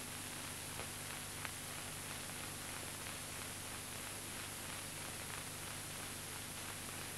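Steady hiss and low hum of an old film soundtrack, with two faint ticks about a second in.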